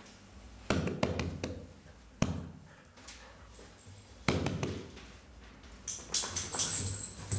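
Beagle puppies' paws and claws tapping and clicking on a tiled floor as they move about, with a few separate knocks early on, one sharp click about two seconds in, and a busier clatter of clicks near the end.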